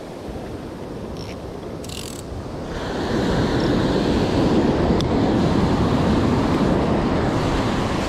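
Ocean surf breaking and washing up the shore. It swells about three seconds in and stays loud almost to the end.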